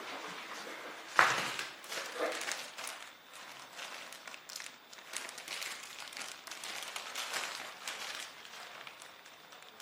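Irregular rustling and clattering handling noises, with a sharp knock about a second in.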